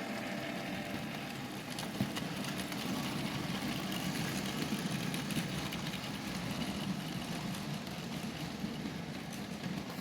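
Bachmann Class 37 model diesel locomotive running along the track hauling a long train of wagons: a steady hum of the motor and the rattle of small wheels on rail, with a sharp click about two seconds in.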